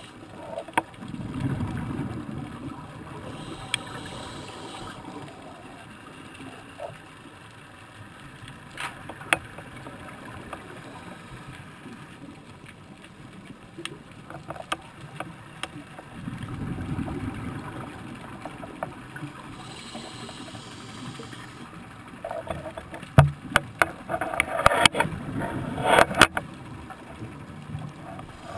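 Scuba diver's breathing heard underwater through a regulator: a low rumble of exhaled bubbles about a second in and again about sixteen seconds in, each followed by the hiss of an inhalation. Near the end, a cluster of sharp clicks and knocks.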